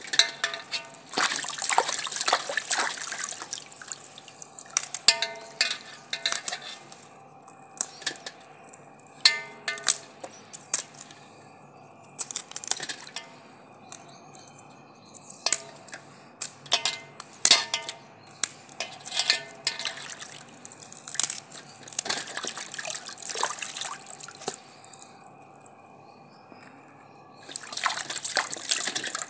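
Vegetables being washed by hand in a metal basin of water: cauliflower, capsicum and green chillies. Short splashes and drips come scattered throughout, with longer sloshing spells about a second in and again near the end.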